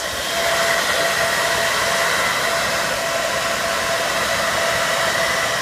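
Cooling fans on a rack of car-audio amplifiers running close up: a loud, steady rushing noise with faint high whine tones.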